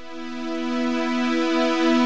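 Background music: held notes that swell in level over the first second and a half, then stay steady.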